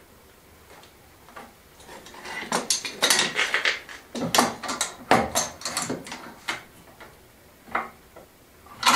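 Metal clamps being handled and set onto a glued wooden rail: a quick run of metallic clicks and clatters that starts a couple of seconds in, then a couple of single clicks near the end.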